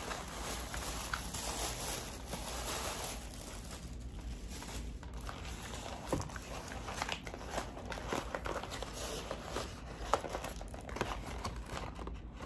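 Crinkling and rustling of a Popeyes chicken sandwich's paper wrapper bag being handled and opened. A dense rustle in the first few seconds gives way to scattered sharp crackles.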